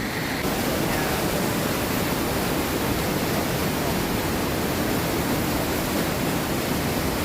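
Waterfall water rushing in a steady, even roar.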